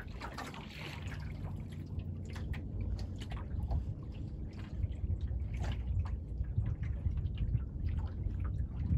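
Water lapping and splashing irregularly against the hull of a small sailboat under sail, over a steady low rumble.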